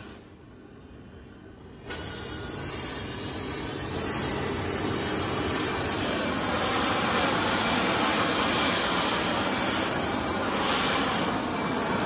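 Oxy-fuel torch with a rosebud heating tip burning with a steady loud hiss while it heats half-inch plate-steel hinges so they can be bent. The hiss jumps abruptly louder about two seconds in and then holds even.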